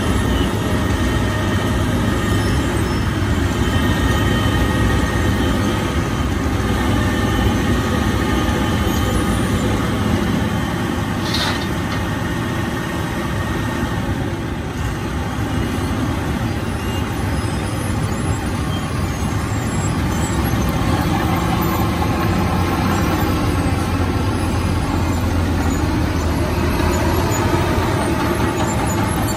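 Wirtgen W 120 CF compact cold milling machine at work: a steady heavy diesel and grinding din as its drum cuts asphalt and the conveyor pours the millings into a dump truck. A single short sharp tick comes about eleven seconds in.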